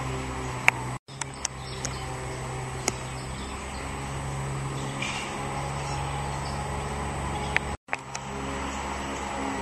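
Outdoor background ambience: a steady low hum under a light haze of noise, with a few faint short chirps and clicks. The sound cuts out completely for a moment twice, about a second in and near the end.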